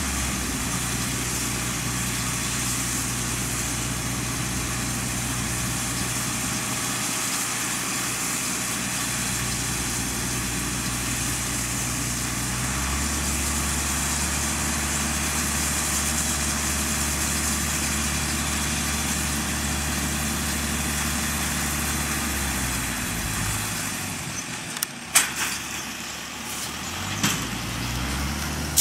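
Farm tractor engine running steadily while pulling a small round baler through straw stubble, with the baler's mechanical rattle and hiss over the engine. The engine note shifts about halfway, and near the end the engine fades and a couple of sharp knocks sound.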